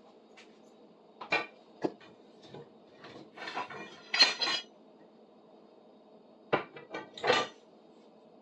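Rummaging: hard objects knocking and clattering against each other in irregular bursts, the loudest about four seconds in and again near the end, over a faint steady hum.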